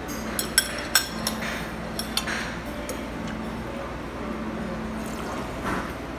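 A metal spoon clinking against dishes: about six sharp, ringing clinks in the first couple of seconds, the loudest two close together, over a steady restaurant background hum.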